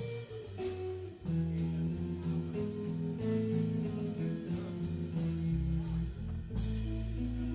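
Live guitar, bass and drums trio playing an instrumental jazz piece: guitar lines over bass and drums. About a second in, the music gets louder with sustained chords, and near the end a deep low note comes in and holds.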